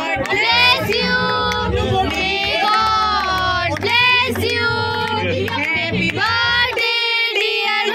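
A song with a high female voice singing over a steady bass accompaniment; the bass drops out about a second before the end while the singing goes on.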